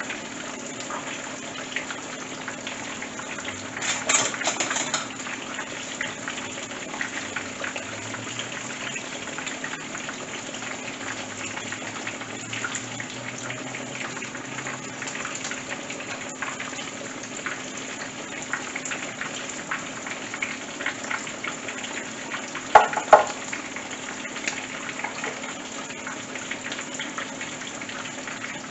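Battered porgy deep-frying in oil heated to about 300–350 °F in a skillet: steady sizzling with dense crackling, which surges briefly about four seconds in. Two sharp clacks come about two-thirds of the way through.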